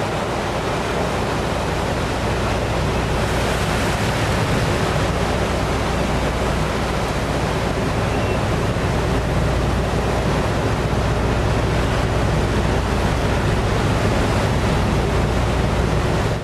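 Steady roar of wind and sea washing between a pilot boat and a ship's hull, over a low rumble of the pilot boat's engines holding it alongside.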